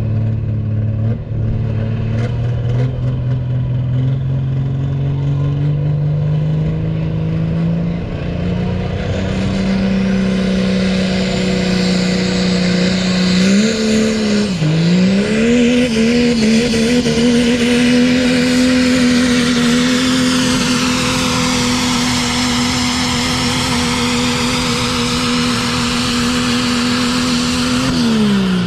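Diesel engine of a pulling truck running at full load down the track. Its revs climb steadily over the first ten seconds, dip briefly about halfway, then hold high and steady, and fall away right at the end.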